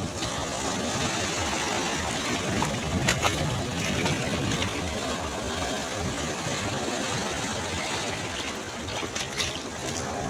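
Ocean surf on a beach: a steady rush of breaking waves, with a few brief crackles of foam or spray.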